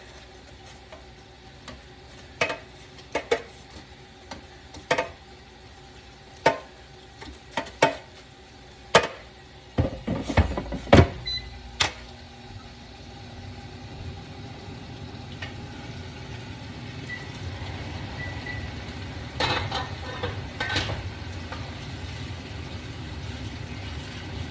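Metal tongs clicking and knocking against an air fryer basket as spring rolls are turned, about half a dozen sharp clicks. Around ten seconds in comes a loud cluster of knocks as the basket goes back in, then the air fryer's fan starts a steady low hum.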